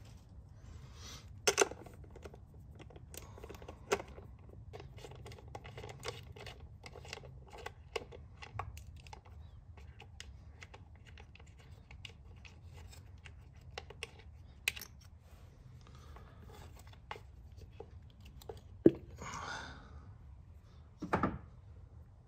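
Small clicks, knocks and scrapes of hands and a socket on an extension working on the engine's ignition coil packs, seating a coil pack and handling its bolt. The clicks come scattered and irregular, with a louder clack about a second and a half in and two more near the end.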